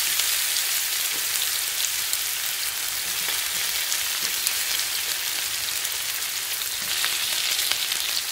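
Chilli-masala-coated ivy gourd pieces sizzling as they fry in hot oil in a pan: a steady hiss with scattered small crackles.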